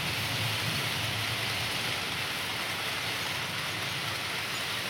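Model train running past on the layout's track: a low rolling rumble of wheels on rail that weakens about halfway through as the last wagons go by, over a steady hiss.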